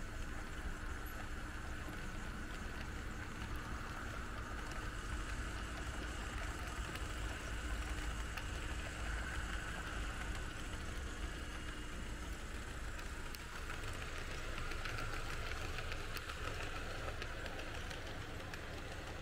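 Märklin H0 model train running on the layout's track: a steady rolling noise of wheels on rails, with a faint motor hum that stops about two-thirds of the way through.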